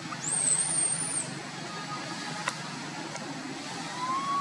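Baby macaque giving a high-pitched squeal lasting about a second, over a steady low rumble of background noise. Near the end a shorter, lower, softer call follows.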